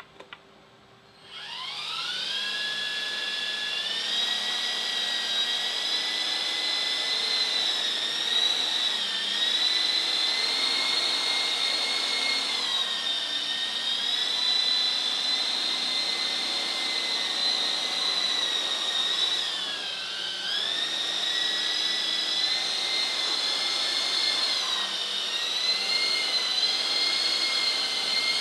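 Small electric coaxial RC helicopter spooling up about a second in with a rising whine, then a steady high whine of its motors and rotors as it flies low around the floor, the pitch dipping briefly a few times with throttle changes. A couple of faint clicks come just before it spools up.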